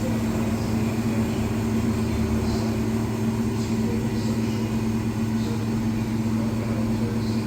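Electrolux Professional WN6-14 commercial washing machine running at the end of its cycle: a steady mechanical hum with a few faint light ticks.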